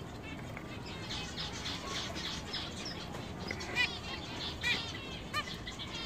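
Zebra finches calling: short chirped calls, several in the second half, over a steady background of soft chirping from caged finches.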